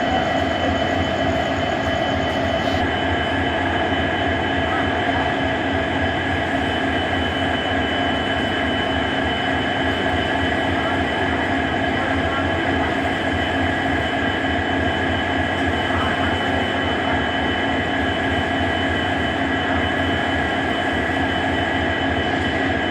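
A pair of coupled EMD two-stroke diesel-electric locomotives idling at a standstill. Their engines make a steady hum, with several fixed tones over a low throb.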